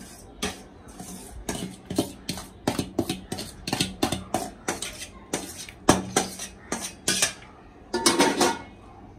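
Steel spoon clinking and scraping against an aluminium pot and a metal strainer while cooked rice is spooned in and spread as the top layer of a biryani. It makes a quick run of sharp clinks, a few a second, and ends in a longer scrape near the end.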